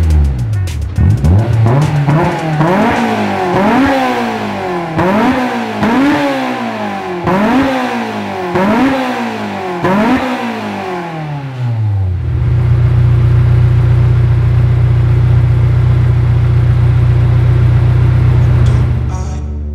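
Honda S2000's 2.0-litre four-cylinder engine, breathing through a Fujitsubo Super EX exhaust manifold and a J's Racing dual muffler, revved in about eight quick blips, roughly one every second and a half. Each blip rises fast and falls back. It then settles into a steady idle.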